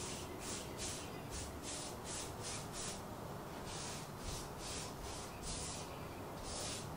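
Paintbrush strokes laying chalk paint onto a mirror frame: short scratchy swishes, two or three a second, with brief pauses about three and six seconds in.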